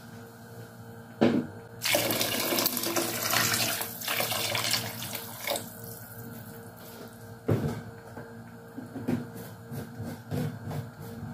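Water poured into a large aluminium cooking pot of chopped vegetables to make the soup broth: a splashing pour of about three seconds starting about two seconds in, after a single knock, followed by scattered knocks and clatter.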